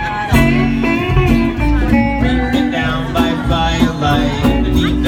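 Instrumental break in a live country song: an electric guitar plays a lead with bent notes over a strummed acoustic guitar.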